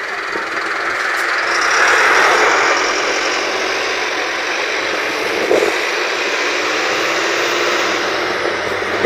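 Steady road and wind noise of a car driving along, heard from inside the cabin. It swells around two seconds in, with a brief knock about halfway through.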